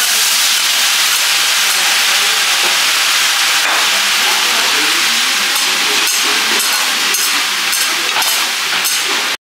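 Steady, loud hiss from the teppanyaki cooking station, with light clinks of metal cutlery on a plate in the second half.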